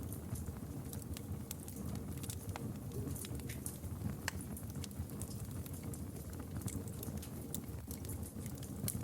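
Campfire crackling: a steady low rush of burning wood with frequent sharp, irregular pops and snaps.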